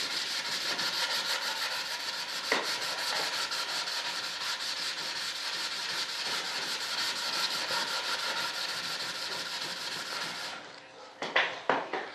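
Sandpaper rubbing in quick, even back-and-forth strokes over the filled surface of a model jet's intake-duct plug. The sanding stops about ten and a half seconds in, followed by a few short knocks.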